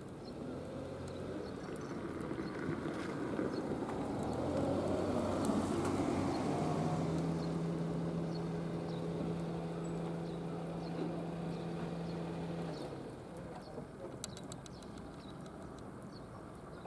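A passing engine: a low rumble swells up a few seconds in, settles into a steady hum, and stops about three-quarters of the way through. A few faint sharp ticks follow near the end.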